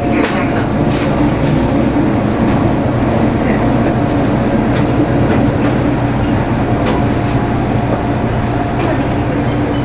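MRT300-series diesel railcar rolling slowly into a platform, heard from the cab: a steady low engine and running drone with occasional faint clicks. A thin high squeal comes in about six seconds in and holds as the railcar slows.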